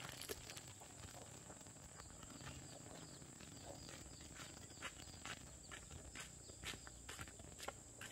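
Footsteps in sandals on a dirt road, faint at first and growing louder toward the end, at about two steps a second as the walker comes closer. A steady high-pitched insect drone runs underneath.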